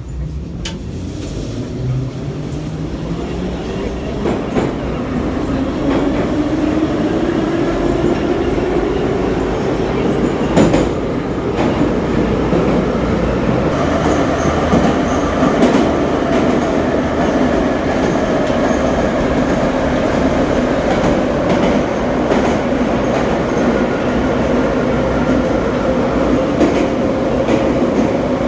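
Em-501-series (81-501/502/503) metro car pulling away from a station, heard from inside the car. A whine rises in pitch as the train speeds up over the first ten seconds or so, while the noise grows louder. It then holds a steady pitch at running speed in the tunnel, with wheels clicking over rail joints.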